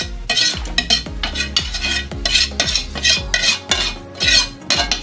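Spatula scraping and clanking against a metal wok in quick repeated strokes, pushing sautéed meat out into a pot of broth.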